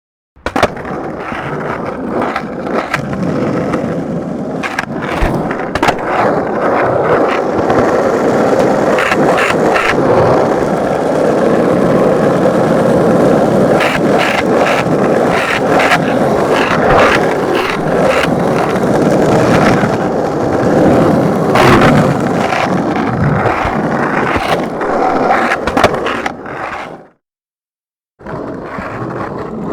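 Skateboard rolling continuously, its wheels making a steady rumble broken by scattered sharp clicks and knocks. Near the end the rolling fades out and stops for about a second, then a new run starts.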